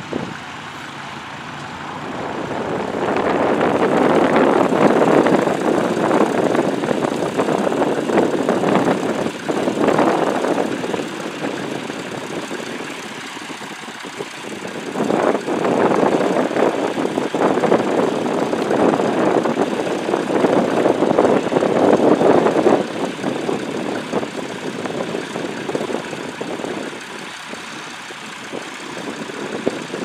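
John Deere farm tractor's diesel engine running under load while pulling a plough through stubble, swelling louder for two long stretches and easing off in between.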